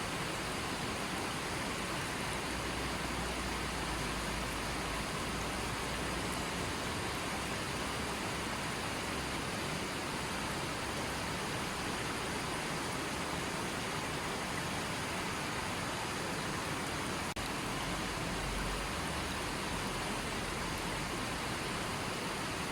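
Creek water flowing: a steady, even rush of running water with no pauses.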